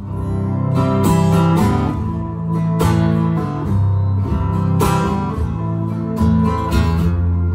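Instrumental introduction of a slow song, with held bass notes under chords and sharp, strummed accents every second or two.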